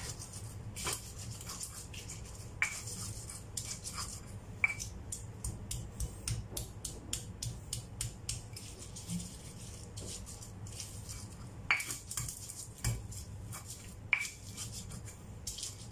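Stone pestle grinding chilies in a stone mortar (cobek), a run of rapid scraping and rubbing strokes with a few sharper knocks of stone on stone; the strokes come thickest through the middle.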